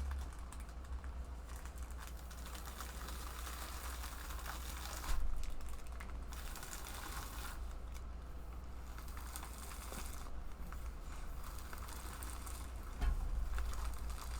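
Packaging being handled at close range: a run of small clicks and taps with light crinkling of plastic and paper as a rolled diamond-painting canvas is folded and packed, over a low steady hum. The noise swells briefly about five seconds in and again near the end.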